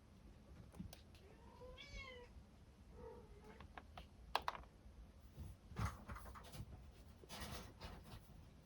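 A young kitten's mew that rises and falls, about two seconds in, and a shorter mew about a second later. Then come scattered sharp clicks and brief scratching, typical of kittens digging in cat litter.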